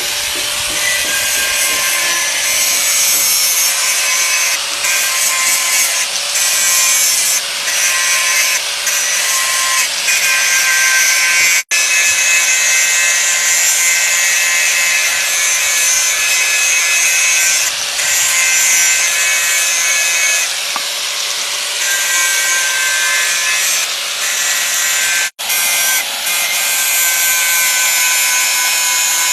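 Electric grinder running with a polishing disc pressed against the steel head of an old carpenter's axe to clean it up before sharpening. A steady motor whine runs under a harsh scraping hiss, and the sound breaks off for an instant twice.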